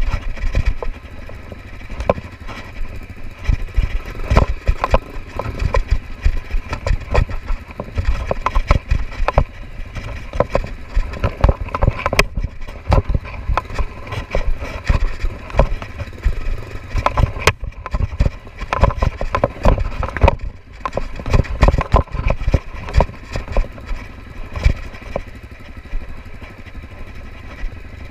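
Off-road motorcycle engine running at low speed over a rocky dirt track, with frequent knocks and rattles as the bike jolts over the stones.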